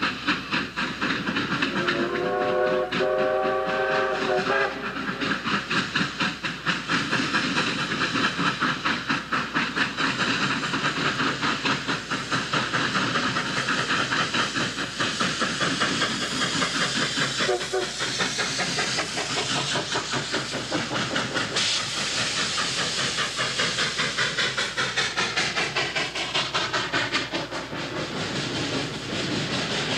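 Three steam locomotives working hard in a tripleheader, their exhaust beats overlapping in a fast, steady pulsing. A chime steam whistle sounds a chord about two seconds in for roughly two and a half seconds, with a short second toot around eighteen seconds in.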